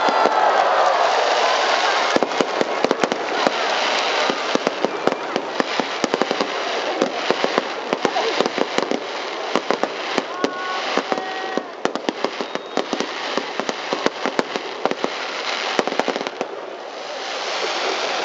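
Fireworks going off: a rapid, dense run of sharp bangs and crackles several times a second, over the steady noise of a stadium crowd, thinning out near the end.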